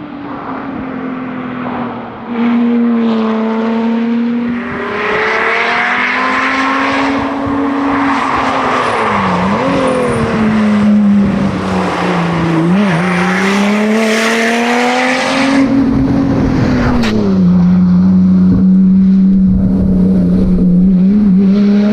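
Supercharged V6 of a 2016 Lotus Exige S driven hard on a tarmac rally stage. The engine pulls up through the revs, drops sharply at gear changes and braking several times, and in the last few seconds holds a steady pitch. A single sharp click comes just before the pitch settles.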